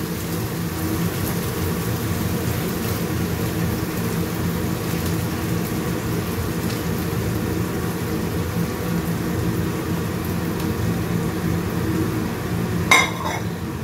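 Goat meat cooking in a wok of spice paste with a little water: a steady low sizzle and simmer, with a short sharp sound near the end.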